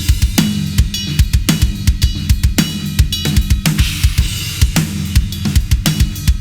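Drum kit played in a fast, busy groove with many strikes a second, featuring a Ludwig Raw Brass 14x6.5 snare drum with its snare wires on and a snare weight damping its overtones, along with kick drum and cymbals. Steady low music plays underneath.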